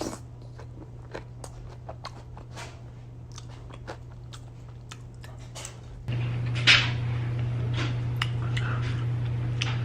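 Close-miked biting, crunching and chewing of fried chicken with crispy breading, in many sharp crunches over a steady low hum. About six seconds in, everything gets louder, the hum included.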